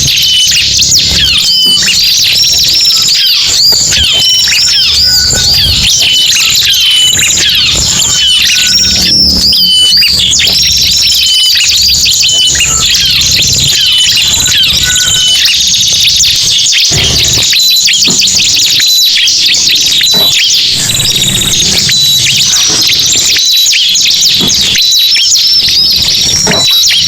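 Ciblek and prenjak birds calling together in a dense, loud, unbroken chatter of rapid high chirps and short repeated whistled notes, layered into a lure recording for attracting these birds.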